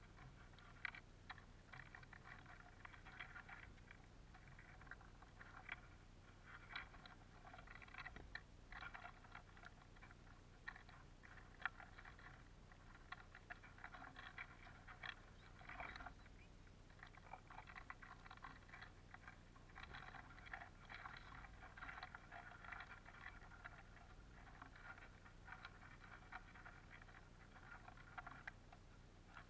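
Faint, irregular clicking and pattering of Eurasian bullfinches and siskins pecking and cracking sunflower seeds and shuffling them on a wooden feeder tray.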